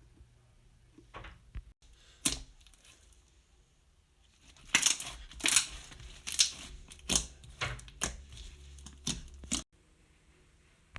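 Soft stretchy slime being squeezed and poked, giving a series of sharp pops and clicks: a few early on, then a quicker irregular run of about nine from the middle onward.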